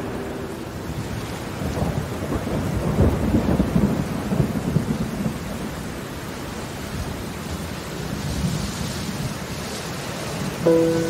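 Rolling thunder over steady rain. The rumble is loudest from about two to five seconds in, then eases back to the rain. Background music comes in with a sudden note near the end.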